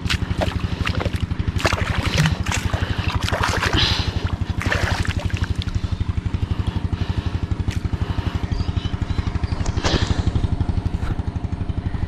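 A small engine runs steadily with a fast, even beat. Over it comes irregular sloshing and splashing of feet and hands in shallow muddy water.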